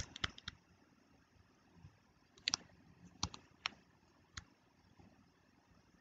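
Faint, scattered clicks of a stylus tapping on a pen tablet while writing, a few at the start and several more between about two and a half and four and a half seconds in.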